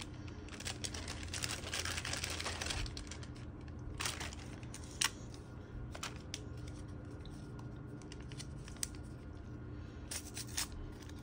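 A plastic zip-top bag rustling and crinkling as it is opened and rummaged through for an alcohol wipe, then scattered small clicks and crackles as the wipe's packet is handled and torn open, with a short cluster of crackles near the end.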